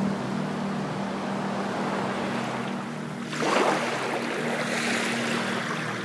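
Sea waves washing and lapping, with a wave surging into a louder splash about three and a half seconds in. A steady low hum runs underneath.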